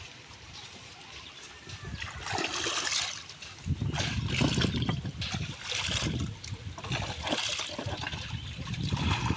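River water splashing and trickling beside a small wooden boat as a hand dips and swishes in it, in irregular splashes that grow louder from about four seconds in.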